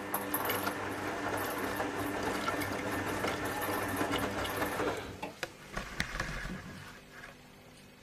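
Zanussi ZWF 1621 W front-loading washing machine turning its drum during a rinse: the motor runs with water and wet laundry sloshing. About five seconds in the drum stops, followed by a few clicks and a low thump.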